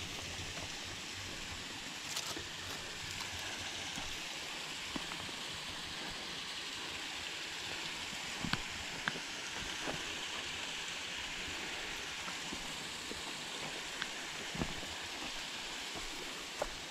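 Steady rushing of creek water running over rocks, with a few scattered sharp clicks on top.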